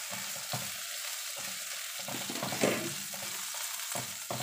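Garlic, onion and black fungus sizzling in hot peanut oil in a nonstick wok, with a spatula scraping through the pan in repeated strokes as the food is stir-fried.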